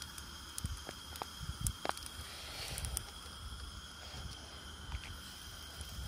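Steady hiss of a SOTO G-Stove gas burner under a hot sandwich maker. A few light metal clicks and knocks come in the first two seconds as the pan is handled and its lid closed.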